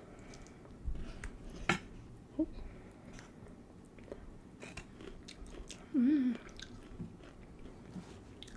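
Close-miked chewing and biting into garlic parmesan chicken wings, with scattered small wet clicks and crunches. A brief voiced hum about six seconds in.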